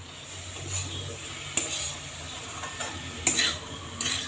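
A spatula stirring and scraping chopped banana flower and spices in a metal kadai, with several short scrapes against the pan.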